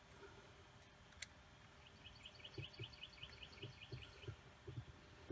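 Near silence: faint light taps of an Allen wrench working the blade clamp of an older reciprocating saw. A bird gives a quick run of faint chirps, about five a second, for a couple of seconds in the middle.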